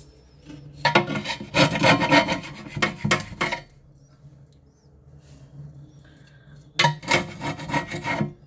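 Metal chisel scraping old silicone sealant off aquarium glass in two bouts of quick back-and-forth strokes, the second shorter. The weakened old glue is being stripped to clean glass so the new sealant will bond.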